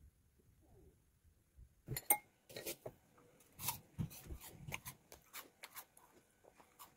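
Dishes and utensils being handled: an irregular run of small knocks and clinks starting about two seconds in.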